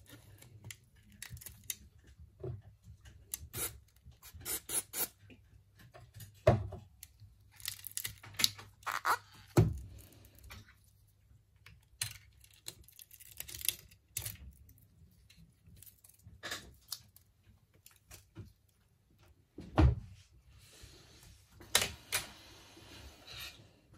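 Small repair tools and smartphone parts handled on a workbench: irregular clicks, taps and light knocks, a few of them heavier, with a scraping rub near the end.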